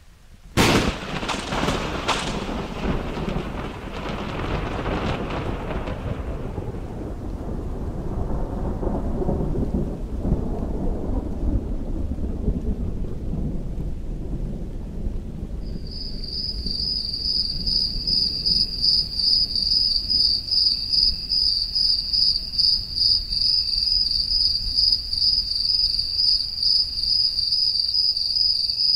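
A thunderclap that cracks sharply less than a second in, then a long rumble that fades over about ten seconds. About halfway through, crickets start chirping: a steady, high, rapidly pulsing trill.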